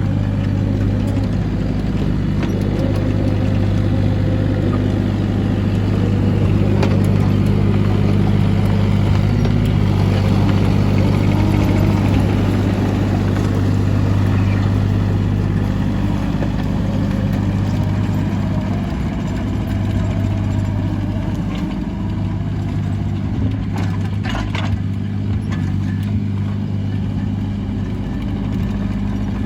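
Bobcat 325 compact excavator's diesel engine running at a steady, constant pitch while it works, with a shifting higher layer of machine noise over it. There are a few sharp knocks about three quarters of the way through.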